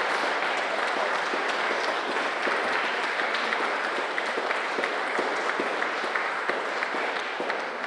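Audience applauding with steady clapping, dying away near the end.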